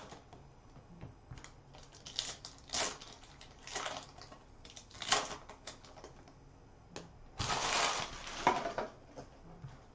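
Foil trading-card pack wrappers crinkling and tearing as they are handled and opened, in a string of short crackles, then a longer stretch of crinkling about seven and a half seconds in.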